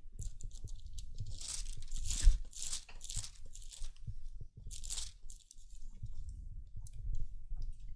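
Thin Bible pages being turned: several short bursts of paper rustling, with a louder bump a little over two seconds in.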